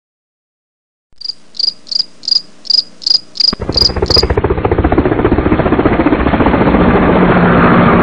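A cricket chirping: evenly spaced high chirps, about three a second, starting after a second of silence. About three and a half seconds in, a much louder, fast-pulsing rough noise cuts in and becomes the main sound.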